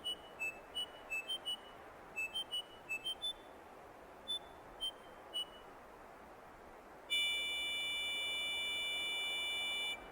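A quick, uneven run of short high electronic blips, then a long steady electronic beep of about three seconds that starts about seven seconds in and cuts off abruptly.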